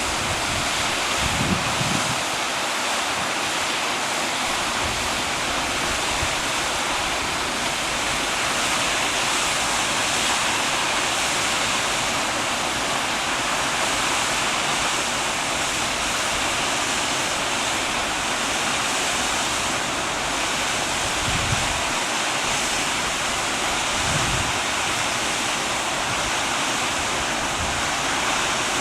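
Mills Creek Falls, a waterfall, giving a steady full rush of falling water, with a few brief low thumps.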